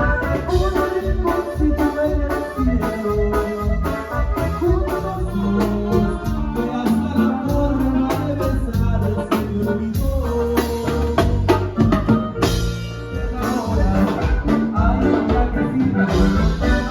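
Dance music played loud through a Martin Audio PA system, with heavy bass and drums, keyboard and some singing over a steady beat.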